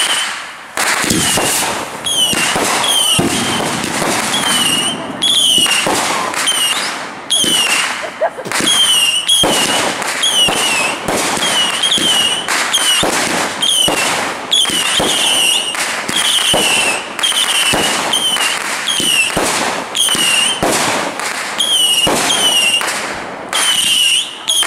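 Fireworks display: shells launching and bursting in dense, continuous crackling. A short, high-pitched chirp repeats about once a second over the bangs.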